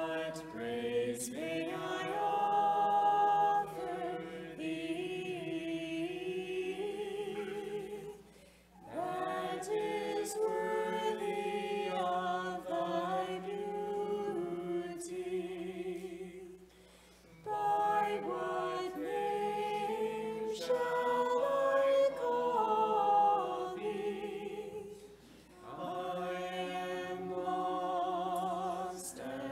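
A small group of voices singing an Orthodox chant hymn unaccompanied, in long phrases broken by short pauses for breath about every eight or nine seconds.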